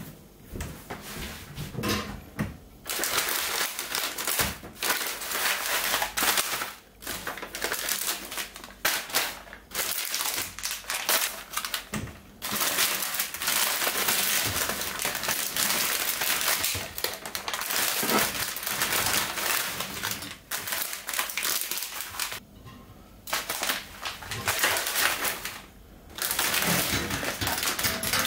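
Plastic food packets and bags crinkling as they are handled and pushed into wire baskets by hand. The rustling runs almost continuously, with a few brief pauses.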